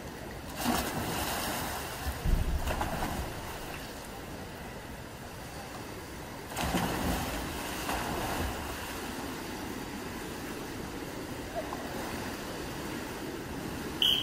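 Artistic swimmers splashing into a pool as they jump in from the deck, over the general noise of a crowd in a reverberant indoor pool hall. The noise swells twice, about half a second in and again about six and a half seconds in, and a short high tone sounds near the end.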